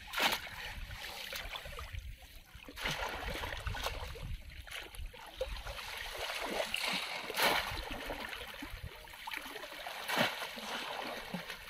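Shallow muddy water splashing and sloshing as bamboo polo fish traps are plunged into it and people wade through, with about four louder splashes among the steady sloshing.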